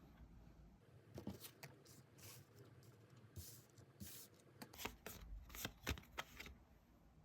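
Tarot cards being shuffled and handled, quiet: soft brushing and sharp card snaps starting about a second in, louder and more frequent in the second half.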